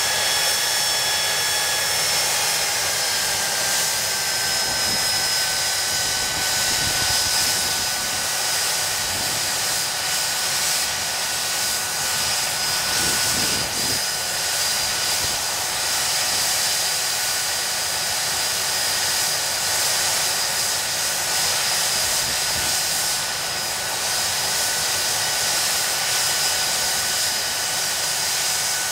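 Rolls-Royce Spey turbofan engines of a Hawker Siddeley Nimrod running steadily on a ground run: a high whine over a rush of air. The whine eases slightly lower over the first few seconds, then holds steady.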